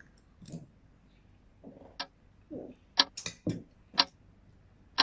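Cutlery clinking against a plate as chicken is cut: sharp clinks about once a second starting about two seconds in, with a few soft low knocks between them.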